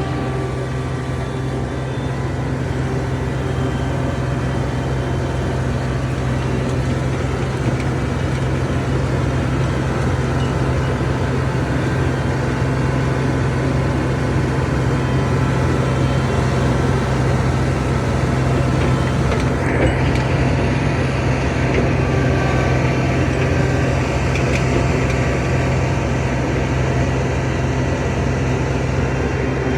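John Deere 250 skid steer's diesel engine running steadily with a constant low hum. It turns a little harsher about two-thirds of the way through.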